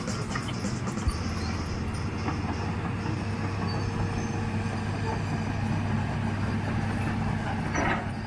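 Steady rumble of a vehicle in motion heard from on board: an even noise with a constant low hum and no change in pitch.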